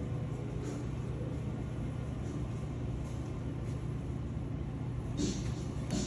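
A steady low rumble of background room noise, with a brief rustle about five seconds in.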